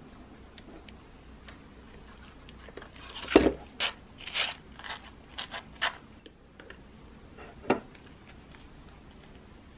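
Butter knife scraping butter across crisp toasted bread: a run of short, crunchy scrapes starting about three seconds in, opened by a knock. Near the end, a single sharp click of metal cutlery against a ceramic plate.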